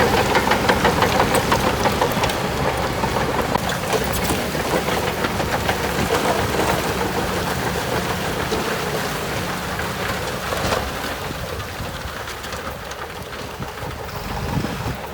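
Diesel engine of heavy earthmoving machinery running, with a rapid clatter over it, growing slowly quieter.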